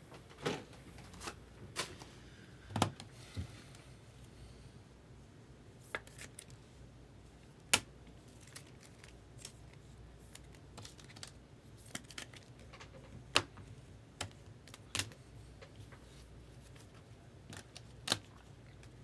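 Trading cards being handled and flipped one by one, giving scattered, irregular sharp clicks and snaps, with a brief soft rustle about three seconds in.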